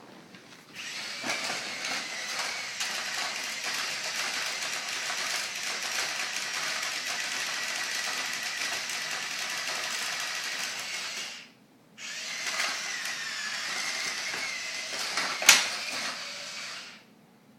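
Small electric motor of a toy construction vehicle running with a steady whine, stopping briefly about two-thirds of the way through and then starting again, with one sharp click near the end.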